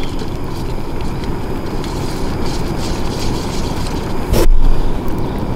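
Camping gas canister stove burner running with a steady rumbling hiss under a pan of egg. There are faint clicks of chopsticks stirring starch water in a small plastic cup, and one low thump about four and a half seconds in.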